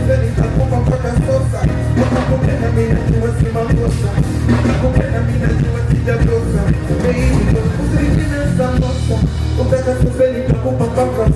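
Live stage music: a band playing a steady beat over heavy bass.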